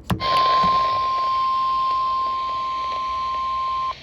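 Weather-radio emergency alert tone: a single steady tone of about 1050 Hz, the NOAA Weather Radio warning alarm tone, held for nearly four seconds over radio static hiss, starting with a click and cutting off suddenly. It signals that a warning broadcast, here a severe thunderstorm warning, is about to be read.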